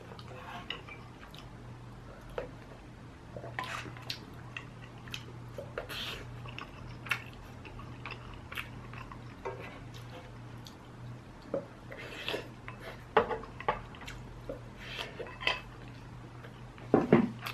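A person eating a soupy stew with a spoon close to the microphone: chewing and mouth smacks with scattered small clicks of the spoon, over a steady low hum. A louder cluster of mouth sounds comes near the end.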